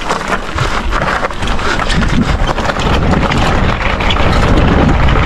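Wind buffeting the microphone: a loud, steady rumble with some gusting.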